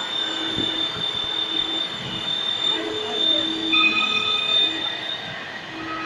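CJ2030HZA high-speed CNC plate drilling machine running, with a steady high-pitched whine and shorter squealing tones that come and go over a background of workshop noise. The whine fades near the end.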